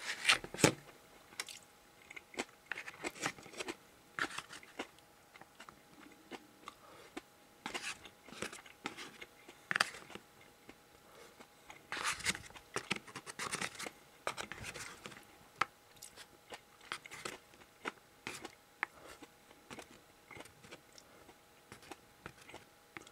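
Wooden disposable chopsticks tapping and scraping on a plastic bento tray while the last rice grains and pickles are picked up, with chewing in between. Irregular small clicks throughout.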